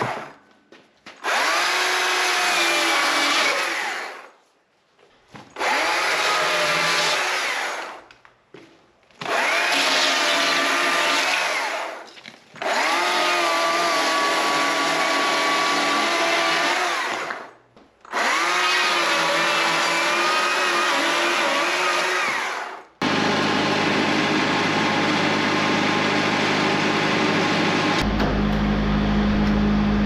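Stihl battery chainsaw trimming limbs and knots off an eastern red cedar log. It runs in five bursts of a few seconds each, with the trigger let go between them, and the motor's whine sags in each cut. About 23 seconds in, a steady machine hum takes over and grows deeper near the end.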